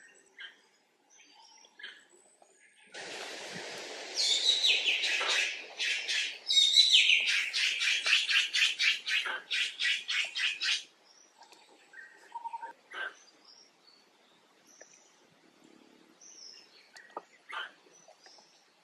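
Loud high chirping calls from an animal in a fast run of about three a second, starting with a hissing sound about three seconds in and stopping abruptly around eleven seconds; a few faint chirps before and after.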